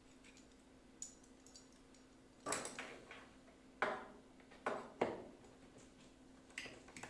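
Hand tools and lumber being handled on a workbench while marking out: a series of sharp clacks and knocks, loudest in a cluster of four in the middle.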